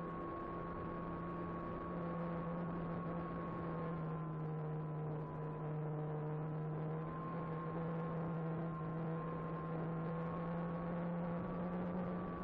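Electric motor and propeller of an Apprentice 15e RC trainer plane running steadily in flight, a constant whirring hum whose pitch drifts slightly with the throttle.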